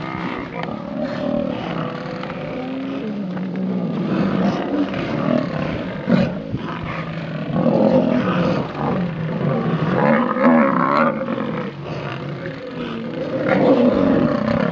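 Lionesses growling continuously in low, overlapping voices as they confront a herd of Cape buffalo, swelling louder several times.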